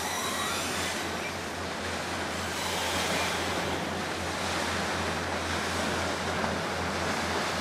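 Choppy river water sloshing and the rushing wash of a harbour ferry's bow wave as it passes close by, with wind buffeting the microphone; a steady, even noise with no distinct events.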